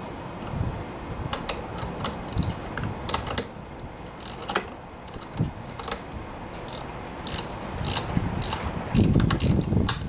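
Small box-end wrench turning a self-tapping screw into a plastic bracket, giving a run of irregular ratchet clicks that come thicker in the last few seconds. Heavier handling noise comes about a second before the end.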